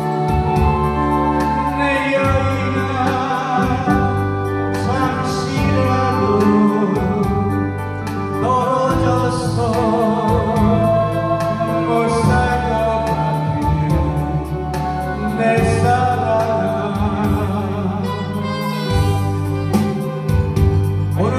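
A man singing into a handheld microphone over instrumental accompaniment with a steady bass beat, his held notes carrying vibrato.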